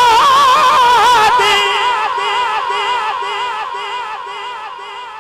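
A man's singing voice holds one long high note with a wide, even vibrato through a PA microphone, typical of naat recitation. About a second and a half in, the note stops and dies away slowly in a long echo.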